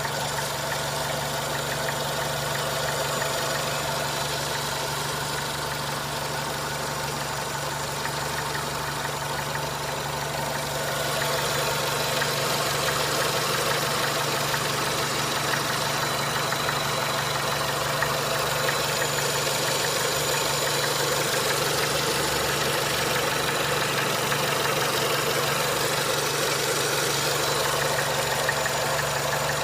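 Renault Mégane II 1.6 petrol engine idling steadily, with an unexplained knocking in the engine that the owner cannot place. It gets a little louder about a third of the way in.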